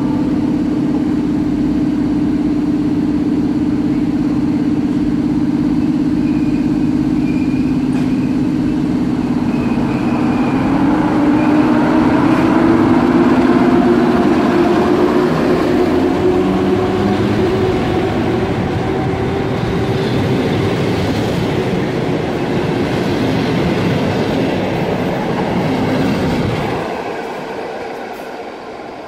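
EP07 electric locomotive pulling a passenger train out of the station. Its steady low hum rises in pitch as it gathers speed, over the rumble of the coaches rolling past, and the sound falls away sharply near the end.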